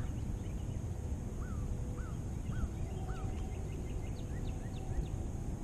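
Steady low rumble of wind and water on an open lake. Faint distant birds call over it: four short rising-and-falling notes about half a second apart, then a few fainter, higher chirps.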